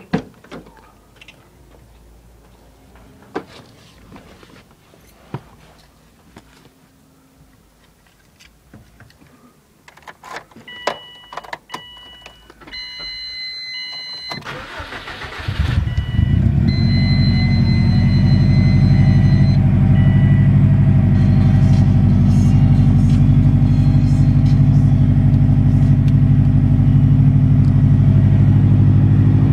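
Subaru WRX STI's turbocharged flat-four cold start after sitting two days: a few knocks and clicks, a run of high beeping chimes, then the starter cranks briefly about halfway through and the engine catches, settling into a steady, even idle.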